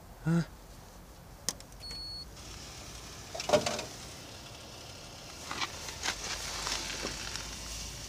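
Coffee vending machine starting a drink after a selection. A click about a second and a half in, then a short electronic beep, then a small motor starts whirring. There is a sharp knock a little over halfway through the first half, and a steady whirring hiss with light ticks continues after it.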